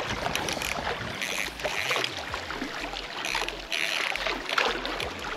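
A spinning reel being cranked to bring in a hooked fish, with small waves lapping on a rocky shore.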